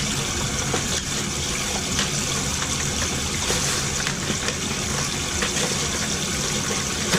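Water running steadily in a toilet, the fill valve filling the tank, with a few faint clicks as parts are handled.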